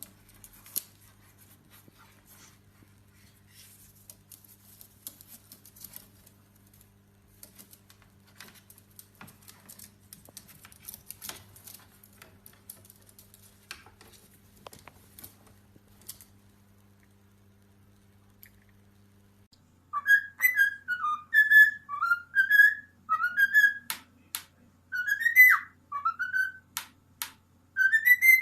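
Faint scattered clicking and scratching over a low hum, then, about two-thirds of the way in, loud whistling: a run of short notes that swoop up and down, one after another.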